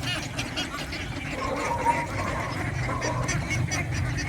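A flock of ducks calling, with many short, overlapping quacks and honks throughout, over a low steady hum.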